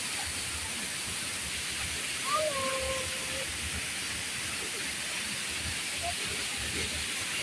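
Steady rushing of a waterfall. About two seconds in, a short held call sounds over it.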